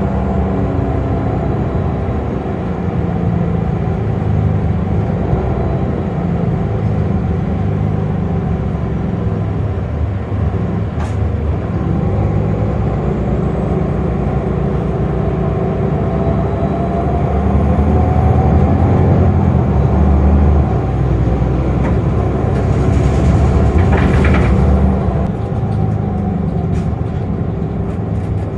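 A city shuttle bus runs steadily with a low engine rumble and a thin high whine. About twenty-three seconds in comes a loud two-second hiss of released air from the air brakes.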